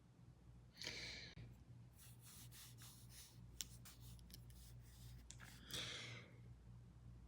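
Quiet scratching of a drawing tool on paper: two longer strokes about a second in and about six seconds in, with a run of short ticks and strokes between them.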